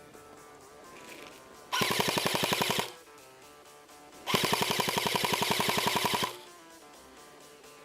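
Airsoft electric rifle firing full-auto in two bursts of rapid, evenly spaced shots with a gearbox whine. The first burst lasts about a second, and the second, about two seconds, comes after a short pause.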